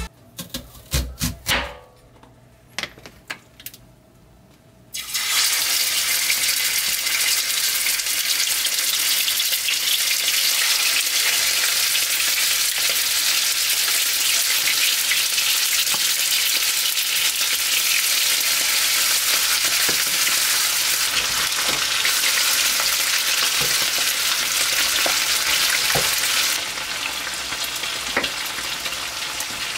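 A few knife strokes on a wooden cutting board, then from about five seconds in, seasoned beef steaks sizzling loudly and steadily in oil in a non-stick frying pan. Near the end the sizzle drops a little and a few more knife strokes come through it.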